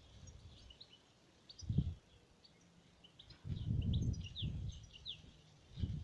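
Gusts of wind rumbling on the microphone, a short one near two seconds in and a longer one from the middle on, over small birds giving many short, high chirps.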